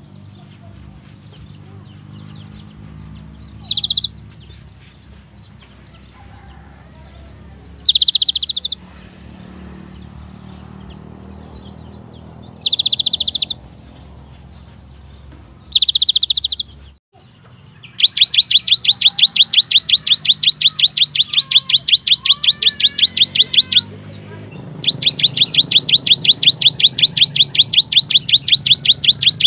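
Cinereous tit (gelatik batu) calling: short bursts of rapid high chips every few seconds, then, from about eighteen seconds in, two long fast trills of evenly repeated notes, about eight a second.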